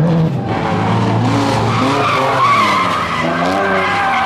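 Drift car engine revving up and down hard, with tyres squealing and skidding as the car slides sideways through a drift.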